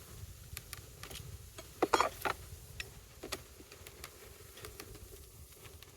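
Plastic Flow Hive frame creaking and clicking as it is handled in the super, with a louder cluster of scrapes and clicks about two seconds in.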